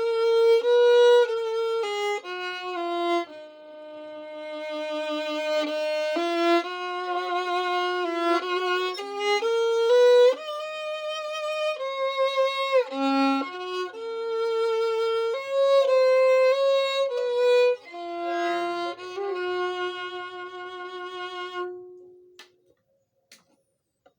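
Skylark violin strung with Larsen Tzigane strings and a Chromcor E string, played unaccompanied: a slow melody of held notes with vibrato. The last note fades out about 22 seconds in.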